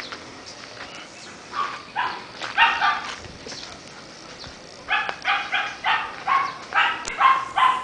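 Dog barking in short, pitched barks: a few about two seconds in, then a quicker run of about three barks a second from about five seconds on.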